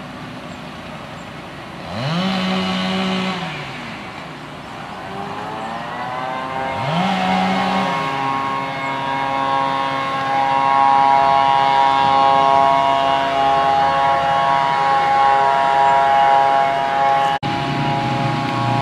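Two-stroke chainsaws clearing storm-downed trees: one revs up to full throttle and back down twice, while another runs steadily at high revs. The sound breaks off suddenly near the end.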